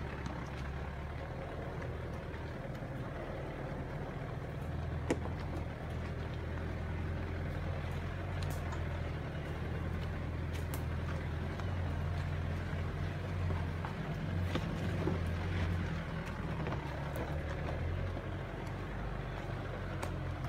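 Mitsubishi Pajero engine running steadily at low revs as the 4WD crawls over loose rocks. A few sharp clicks sound over it.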